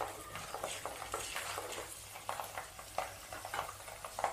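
Peeled garlic cloves frying in hot oil in an earthenware pot, a faint sizzle with scattered small crackles, while a wooden spatula stirs them.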